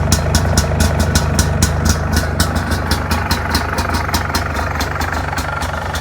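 MZ ETZ 251 single-cylinder two-stroke engine idling steadily with an even, rapid run of firing pulses. The exhaust connector has just been sealed with high-temperature silicone, and the owner hears no leak from it.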